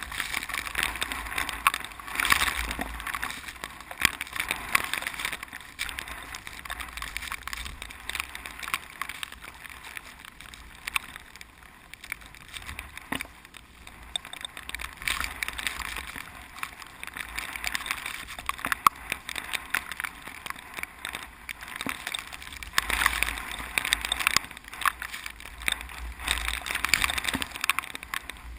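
Strong typhoon wind gusting through ripening rice, a rustling, crackling hiss with low rumbling on the microphone that swells in gusts near the start and again near the end.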